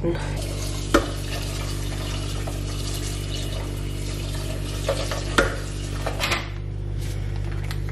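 Kitchen tap running water into a stainless steel pot of dry soy chunks, a steady hiss, with a few metallic knocks of the pot against the sink.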